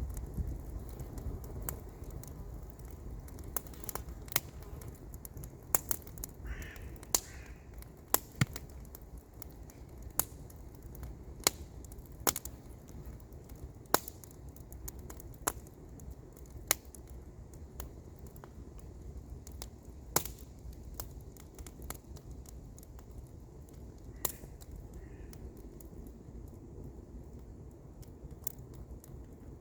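Wood campfire crackling, with irregular sharp pops and snaps over a steady low background. A bird calls briefly twice, about seven seconds in and again near the end.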